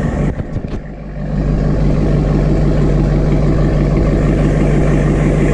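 Chevrolet Corvette 6.2-litre V8 idling steadily while still warming up after a cold start. The exhaust note dips briefly, with a few faint clicks, under a second in.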